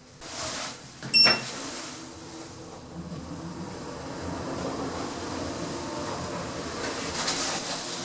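Lift car in operation: a sharp metallic click with a brief high ring about a second in, then a steady mechanical running noise with a faint high whine.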